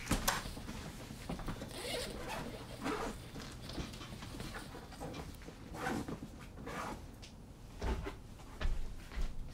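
A backpack being handled: its zipper pulled and the fabric rustling in a few short spells, with some light knocks.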